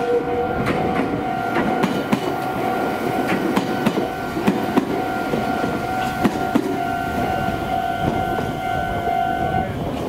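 Meitetsu electric train passing over a level crossing, its wheels clacking irregularly over the rail joints. Behind it the crossing's warning alarm sounds steadily and stops just before the end, as the train clears the crossing.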